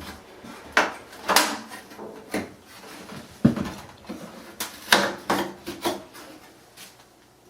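Irregular knocks and clunks from handling the panels and parts of an opened clothes dryer, about eight in a few seconds. They die down near the end.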